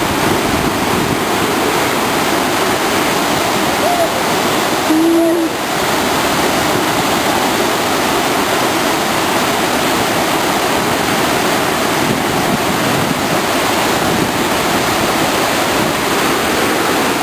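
Steady, loud rush of whitewater: a mountain stream cascading over boulders.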